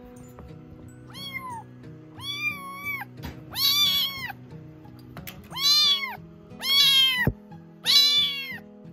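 Tabby kitten meowing six times, high calls that rise and fall in pitch, getting louder in the second half.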